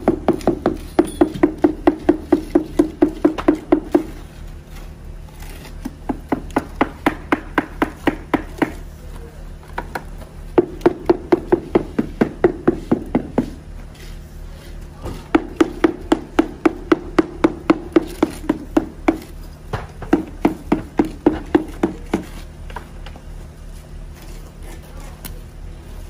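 A hand tool knocks rapidly on a wooden mould full of wet concrete, about four or five knocks a second. Each knock rings briefly. The knocking comes in runs of two to four seconds, five times, with short pauses between.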